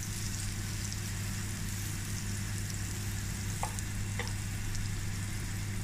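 Butter melting and sizzling in a hot non-stick frying pan as brioche bun halves toast, with a couple of light taps of a table knife on the pan about halfway through. A steady low hum runs underneath.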